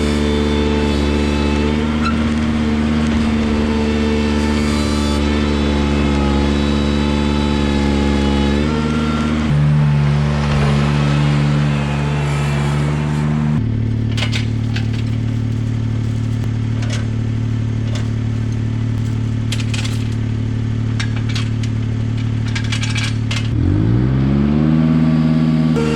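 Ventrac 4500Z compact tractor engine running steadily, its pitch stepping down a few times and then rising as it revs up near the end. Sharp clanks and knocks are heard in the second half.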